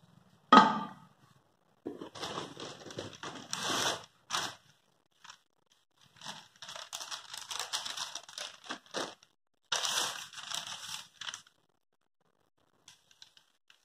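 A metal clank as the pressure cooker's lid is set onto its body, then long stretches of plastic wrapping crinkling and rustling as the packaging is handled.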